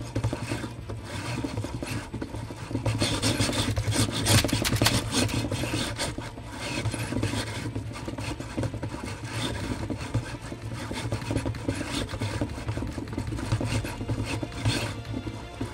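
Electric shake table running a strong simulated earthquake, shaking a tall model tower built of wooden sticks so that it rattles in a fast, rasping clatter over a steady low hum. The clatter is loudest about four to five seconds in.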